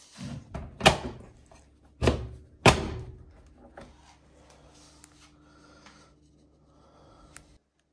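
Front-loading washing machine door being pushed shut against its latch, with three sharp clunks: the first about a second in, then two close together around two and a half seconds in, followed by lighter knocks.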